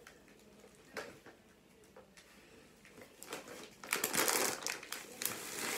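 Plastic snack wrapper handled and crinkled: a few scattered clicks and rustles, then a louder burst of crinkling from about three seconds in.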